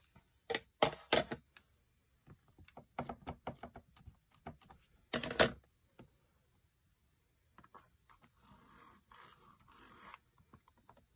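Tabletop stamping sounds of plastic craft tools. Sharp plastic clicks come as an ink pad case is opened and handled, then light taps of inking, and one loud clack about halfway through. Near the end there is soft scuffing as a hand presses on the clear lid of a stamp positioning tool.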